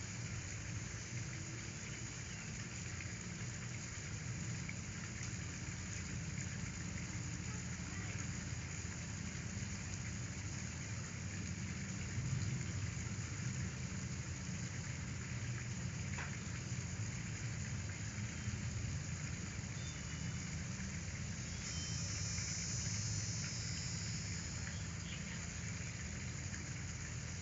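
Steady low hum under an even hiss, with a faint high trill late on.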